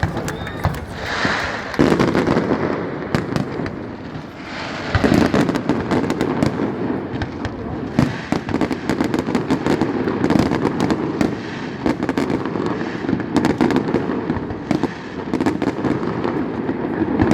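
Fireworks going off: many sharp bangs and crackles, closely spaced, over a continuous noisy wash.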